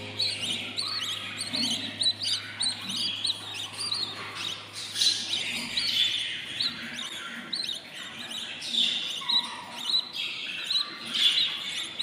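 Budgie chicks chirping: a busy, continuous run of short, high chirps. A faint low hum underneath stops about halfway through.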